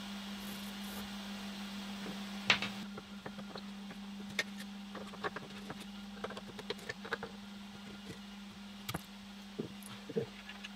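Scattered small clicks and knocks as a screwdriver undoes the hold-down clamps and plywood pieces are handled on the CNC router's bed. One sharper knock comes about two and a half seconds in, over a steady low hum.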